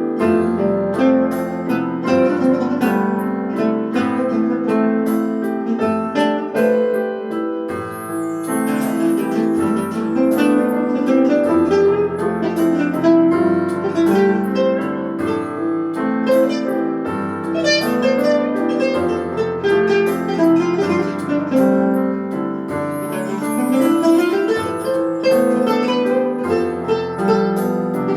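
Fretless guitar and piano playing an improvisation on a Turkish folk tune (türkü), with held low piano notes under plucked melody notes and a rising slide on the fretless guitar a little before the last few seconds.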